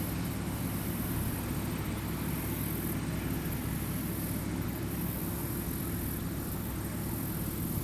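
Tractor engine running steadily, a low even rumble with no change in speed.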